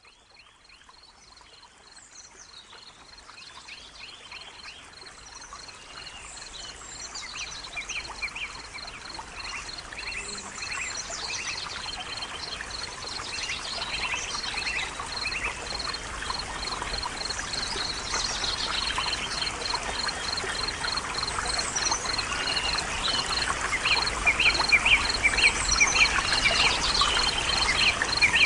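Nature soundscape of many birds chirping and singing over running, trickling water, with a rapid, even pulsing high note throughout. The whole fades in gradually from near silence.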